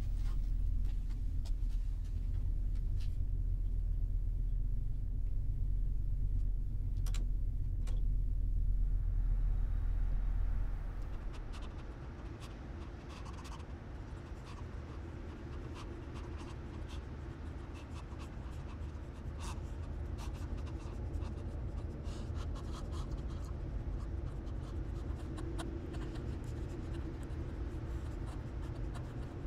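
Film sound design: a low droning rumble with a few scattered clicks. About ten seconds in it gives way to a quieter scratchy, crackling hiss made up of many small clicks.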